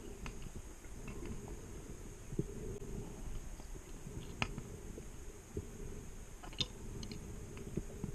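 Muffled underwater sound picked up through a dive camera's housing: a steady low rumble with a faint steady high whine and a few scattered sharp clicks.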